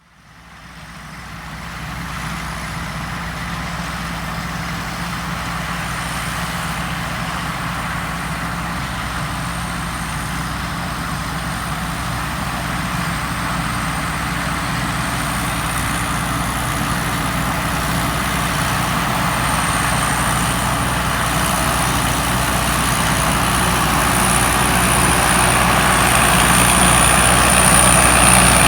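Combine harvester running steadily, a low engine hum with a thin high whine above it, fading in at the start and growing gradually louder.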